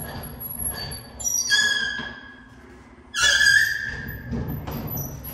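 Hidden closet door squeaking on its hinges as it swings: two drawn-out squeaks, the second and louder one starting with a click about three seconds in.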